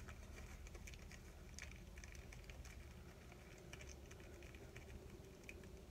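Faint crinkling of aluminum foil being rolled and twisted tightly by hand into a thin rod, with a few light, irregular crackles.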